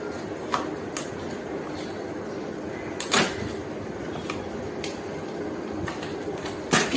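A blade cutting packing tape on a cardboard box: scattered short scrapes and clicks, with two louder rasps about three seconds in and near the end, over a steady background noise.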